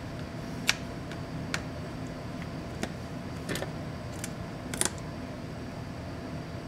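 About six light, sharp clicks and taps of a small screwdriver and fingers on the plastic bezel and metal hinge of a laptop display assembly, scattered irregularly, the loudest about a second in and near five seconds in. A steady low hum runs underneath.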